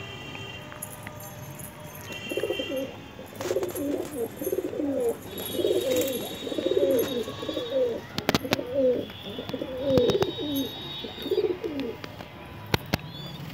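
Domestic pigeons (Desi high-flyers) cooing: a run of repeated low, warbling coos that starts about two seconds in and stops shortly before the end.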